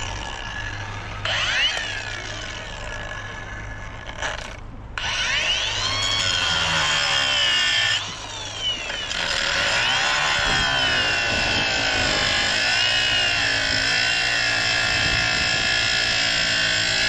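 Handheld power cutting tool whirring briefly, then running steadily from about five seconds in as it cuts into aluminum scrap, its motor pitch sagging and recovering under load. It stops briefly about eight seconds in.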